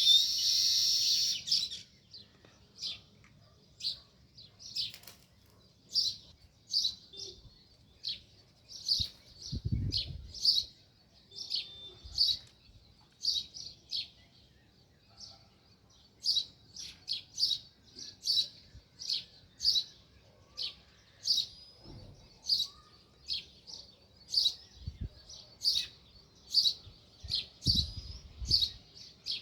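House sparrows chirping: a quick flurry of chirps at the start, then short, single repeated chirps that come faster, about one or two a second, in the second half.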